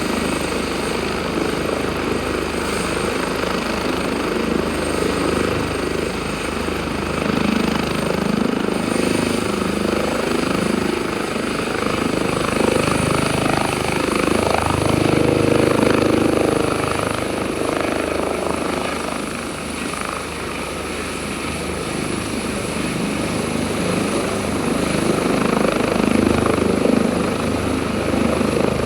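Airbus H145 twin-turbine helicopter running, a steady rotor and turbine roar with a thin high turbine whine that rises slightly in pitch about eight to ten seconds in.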